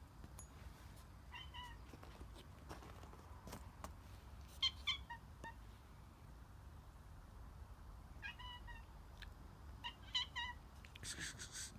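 Cat meowing in short calls, two to four at a time in several clusters. A brief hissing noise comes near the end.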